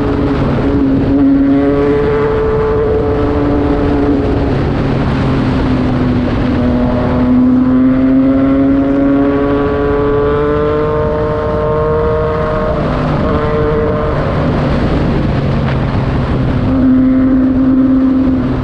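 Yamaha MT-09's three-cylinder engine running through a Racefit Slash aftermarket exhaust, its pitch climbing slowly over several seconds and then dropping back, several times over.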